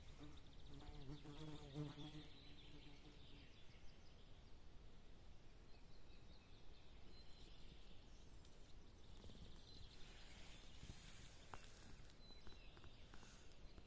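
Near silence, broken by an insect buzzing past for about two and a half seconds near the start, and faint high chirps near the end.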